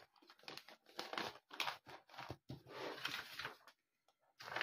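Paper sheets and a binder's plastic sleeve rustling and crinkling as they are handled, in a string of short rustles with a brief pause near the end.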